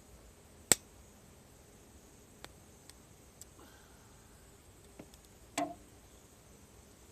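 Cedar firewood crackling in a campfire. There is one sharp, loud pop just under a second in, a few small ticks after it, and a short cluster of pops a little past five seconds.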